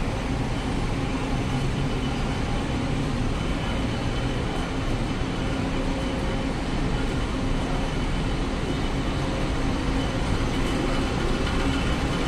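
Steady traffic noise from cars and buses at a pickup curb, an unbroken hum with a constant low drone and no sudden events.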